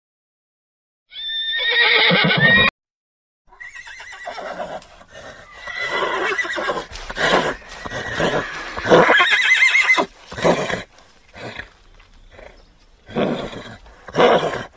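Horse whinnying. A short high whinny cuts off abruptly about two and a half seconds in. After a brief gap comes a long, wavering whinny that is loudest about nine seconds in, followed by several shorter bursts.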